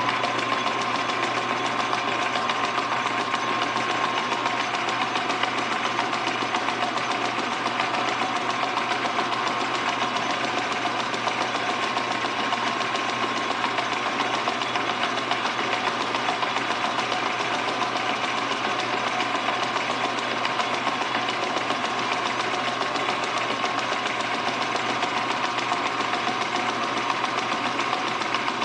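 Metal lathe running steadily at speed while a tool bit takes a cut on a pulley blank, a constant mechanical whir with a few faint steady tones.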